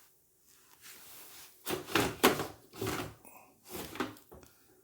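A quick run of knocks and scraping rubs as dryer housing parts are handled, starting about a second and a half in, with the loudest hits around two seconds in.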